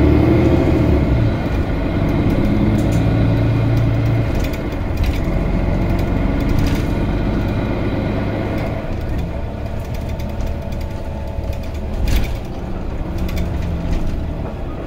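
Mercedes-Benz Citaro G articulated bus running under way, its diesel engine and Voith DIWA automatic transmission heard from inside the passenger cabin. Louder for the first four seconds, then quieter, with a single sharp knock about twelve seconds in.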